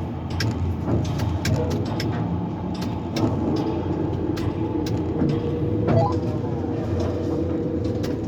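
Tower crane machinery running during a lift: a steady low hum with many scattered clicks, and a steady whine that sets in about five seconds in.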